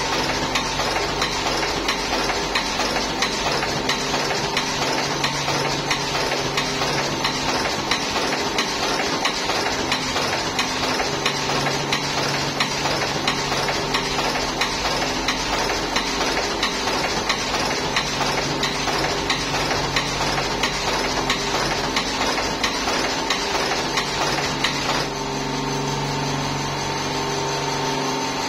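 Buffalo V5S automatic cigarette filling machine running: a rapid, even clicking over a steady motor hum. About 25 seconds in, the clicking stops and the hum carries on.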